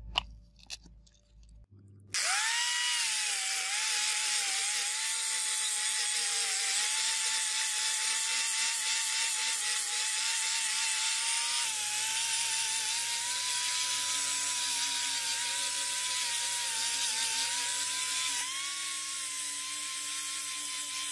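An angle grinder with a foam-backed fine-grit sanding disc starts about two seconds in, its whine climbing quickly and then holding steady, with a hiss from the disc sanding the steel blade. Near the end the pitch shifts slightly and the sound gets a little quieter.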